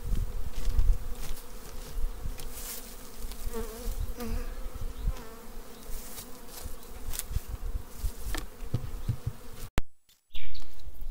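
Carniolan honeybees buzzing in a steady hum around an open hive, with rustles and soft knocks as the plastic sheet and cover mat are laid over the frames. The sound breaks off suddenly near the end.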